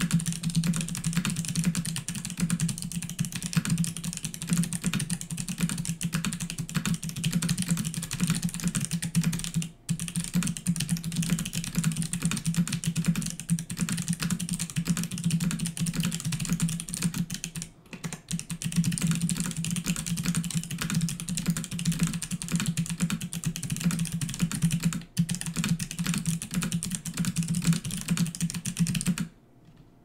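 Fast typing on a 60% mechanical keyboard (DZ60 in a Tina-C case) with Kailh Box Navy clicky switches: a dense stream of really loud, sharp clicks, one per keystroke. The typing pauses briefly three times and stops about a second before the end.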